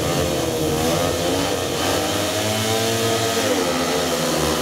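Several speedway bikes' 500 cc single-cylinder methanol engines revving at the start line, their pitch rising and falling in the middle. They then accelerate hard away off the start near the end.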